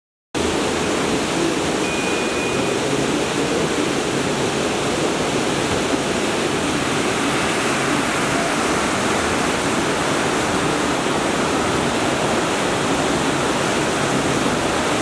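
Whitewater rushing through a concrete canoe slalom channel: a steady, loud noise of churning rapids that starts suddenly just after the beginning and cuts off abruptly at the end.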